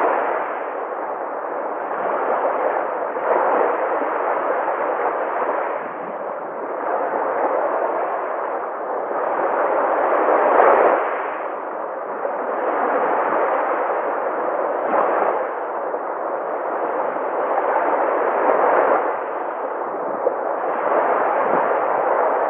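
Sea waves breaking and washing ashore: a continuous rush of surf that swells and eases every few seconds, with the strongest surge about ten seconds in.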